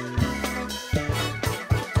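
Background music with a steady beat: sustained instrument notes over regular drum hits.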